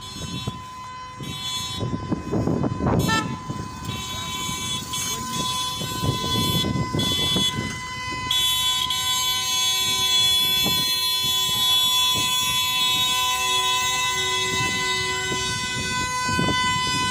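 Many taxi horns hooting at once from a passing convoy of minibus taxis and cars, several held tones overlapping over engine rumble. The hooting grows louder and steadier about eight seconds in.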